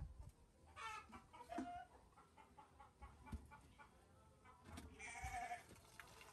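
Faint calls of farmyard animals a few times, about a second in and again near the five-second mark, over soft knocks of a metal cooking pot and its steel plate lid being handled.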